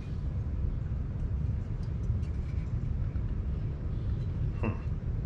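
Steady low background rumble with a few faint light clicks, and one short high sound about four and a half seconds in.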